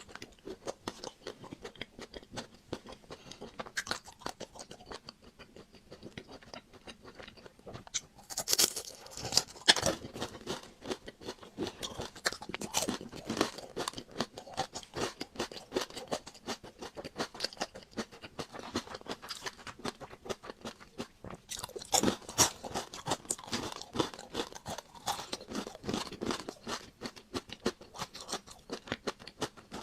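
Close-up chewing and crunching of a chocolate-coated ice cream bar: the hard chocolate shell crackles between the teeth as it is bitten and chewed. The loudest bites come about a third of the way in and again about three quarters of the way through.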